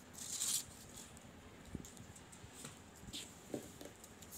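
Faint handling noises of a cloth measuring tape and velvet fabric: a short rustle at the start, then scattered soft clicks and taps.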